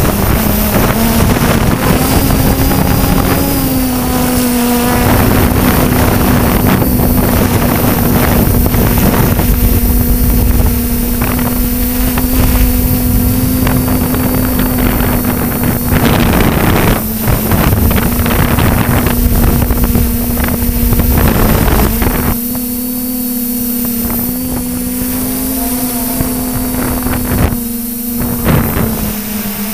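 Xugong multirotor's electric motors and propellers humming steadily, heard from its onboard camera, with the pitch shifting a little as the motors change speed. Wind buffets the microphone hard, easing off after about twenty-two seconds.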